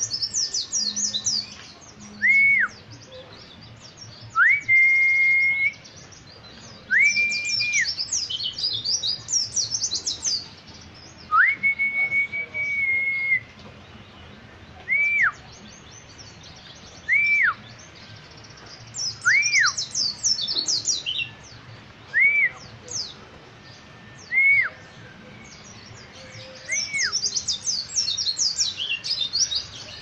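Caged Kintamani (Bali) pleci, a white-eye, singing in bursts of fast, high, chattering twitters that come and go over several seconds at a time. A loud, clear single-note whistle rings out every two to three seconds throughout, sometimes held for a second or two.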